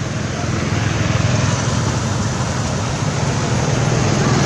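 Motor vehicle engine running on the road, a steady low hum with road noise that slowly grows louder.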